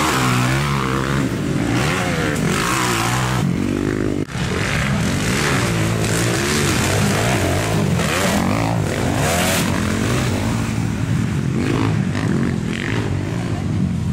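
Motocross dirt bike engine revving hard, its pitch rising and falling again and again as the rider works the throttle. About four seconds in, the sound breaks off for an instant.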